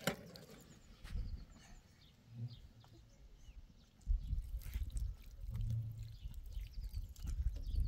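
Water poured from a kettle over a child's hands, splashing and dripping onto bare dirt. From about four seconds in, a low rumble is the loudest sound.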